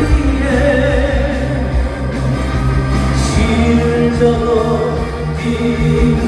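Band music with a singing voice, a rock-flavoured pop song with a strong bass.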